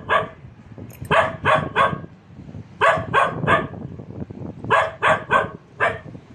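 A dog barking hard in quick volleys of three sharp barks, a new volley about every two seconds.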